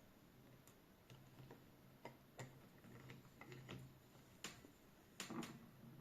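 Faint, irregular small clicks and taps from working a screw-type watch crystal press as the crystal is pressed into the case in small steps.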